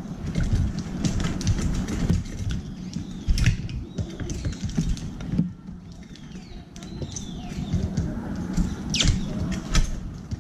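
Eurasian tree sparrows pecking sunflower seeds from a steel tray: many quick taps and clicks of beaks and seed husks on the metal, with a few short chirps in the middle and near the end. A low rumble runs underneath.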